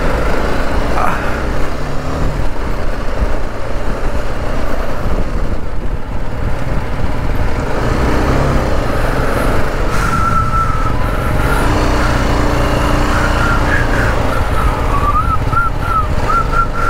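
Motorcycle being ridden, its engine running steadily under a thick wash of wind noise. A faint wavering high tone comes in during the second half.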